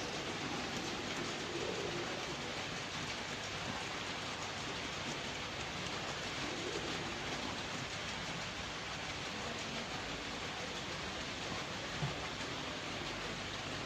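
A steady, even hiss with a faint low murmur under it and one small knock about twelve seconds in.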